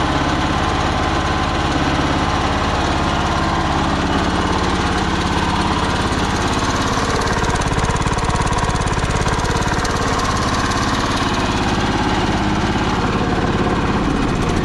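Honda Harmony 1011 riding mower's engine running steadily. It is burning off oil from an overfilled crankcase, with oil still in the cylinder, and blowing smoke.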